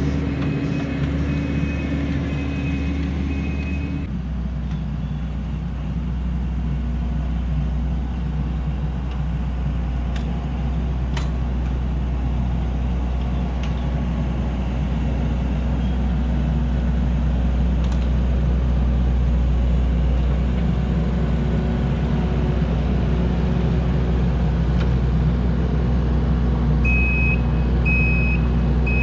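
Kubota compact track loader's diesel engine running steadily under work, with its backup alarm beeping about once a second while it reverses. The beeping stops about four seconds in and starts again near the end.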